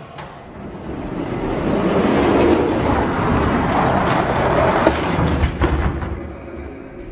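Die-cast toy monster trucks rolling down a plastic track: a rolling rumble that swells over the first couple of seconds and eases off near the end, with a few sharp clacks about five seconds in as they reach the finish.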